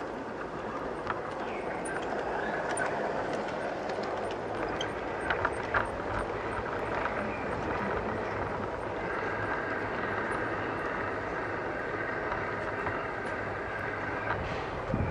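LGB garden-railway model trains running on outdoor track: a steady rolling rumble of wheels on rail, with a few sharp clicks about a third of the way through. A steady higher electric-motor whine joins in the second half.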